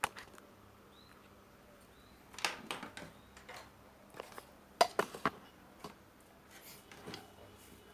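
Scattered small clicks and taps of tools and the circuit board being handled on a workbench during resoldering of a dry joint, with a cluster of taps a few seconds in and the sharpest ones about five seconds in.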